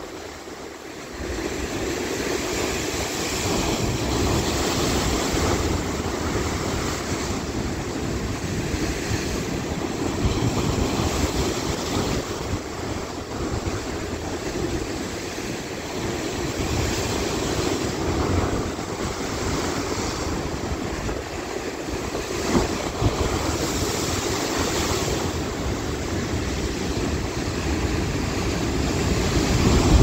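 Rough sea surf breaking and splashing over shoreline rocks, a continuous wash of waves and foam. It dips briefly at the start, then grows louder near the end as a large wave bursts over the rocks.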